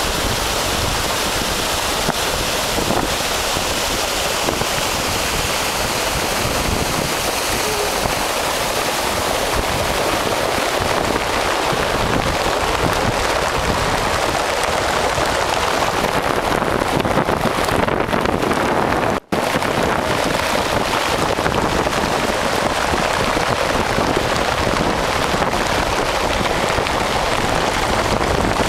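Muddy flash-flood water laden with rocks and debris rushing in a steady, loud torrent down a drainage channel and over a road. The sound cuts out for a split second about two-thirds of the way through.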